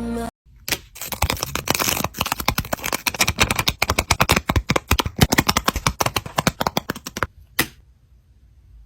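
Paper crinkling and rustling in dense, rapid crackles as a paper blind bag is handled and opened, stopping about a second before the end after one last click.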